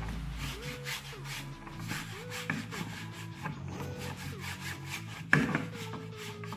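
A wet tissue rubbed over a hard table top in repeated wiping strokes, with one sharp knock about five seconds in.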